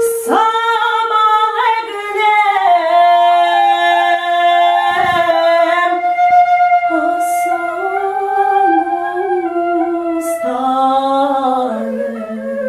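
A small wooden folk pipe playing a melody, with a woman's voice singing along.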